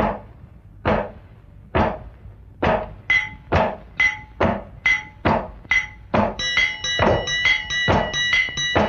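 Instrumental opening of a Tamil film-style song. Sharp percussion strikes come about once a second, then about two a second from about three seconds in, each now ringing with a high tone. A held chord joins about six seconds in.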